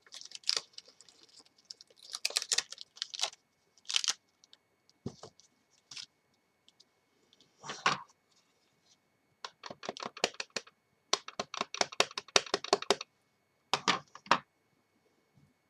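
Light clicking and tapping of an acrylic stamping block and ink pad being handled, in scattered clusters with a long run of rapid taps near the end, as a clear stamp is inked up.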